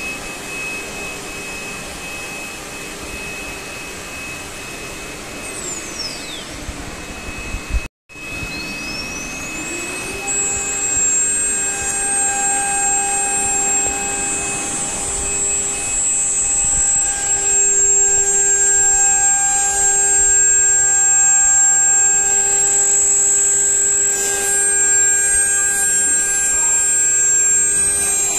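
High-speed spindle motors of a four-spindle CNC nesting router, running with a steady high whine while cutting wood panel. About six seconds in a spindle winds down in a falling whine. The sound cuts out briefly at eight seconds, then a spindle spins up in a rising whine to full speed and runs steadily and louder.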